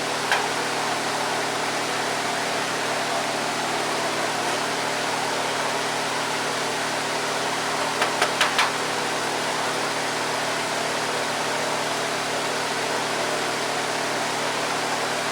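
Electric shop fan running with a steady whir and hum. There are a few light clicks just after the start and a short run of clicks about eight seconds in.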